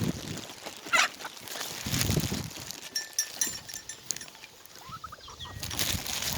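Chickens clucking, with one sharp, loud call about a second in and a few short clucks near the end.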